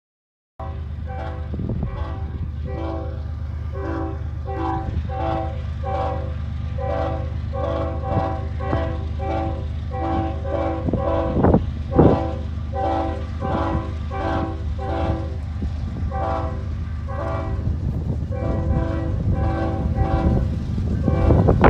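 GE diesel freight locomotives running as an intermodal train pulls away, under a bell ringing steadily about every three-quarters of a second. A couple of sharp knocks come about halfway through.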